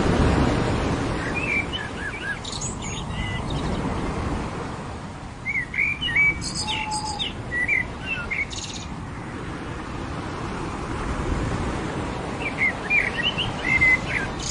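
Birds chirping in three short bursts of warbling notes over the steady wash of ocean surf on a beach. A wave breaks loudest right at the start, and the surf eases after it.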